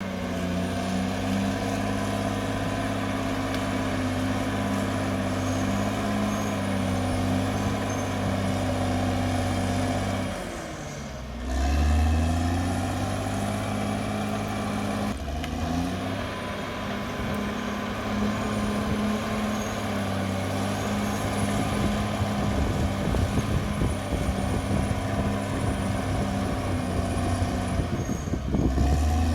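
Caterpillar D6R XL bulldozer's diesel engine running steadily; about ten seconds in it drops off briefly and picks back up. Irregular clanking and rattling build up near the end.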